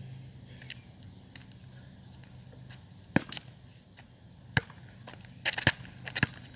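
A basketball bouncing on an asphalt court: a single sharp bounce about halfway through, another a little later, then a quicker run of bounces near the end as the dribbling picks up. A faint low hum sits underneath in the first half.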